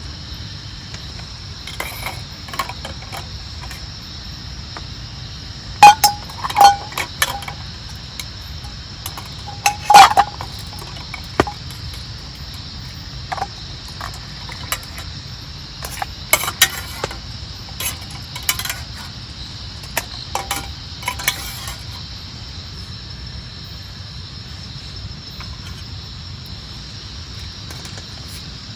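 Scattered clinks and knocks of small hard objects, metallic-sounding, over a steady background hiss. A few loud ones with a short ring come about six seconds in and again about ten seconds in, with lighter taps in between.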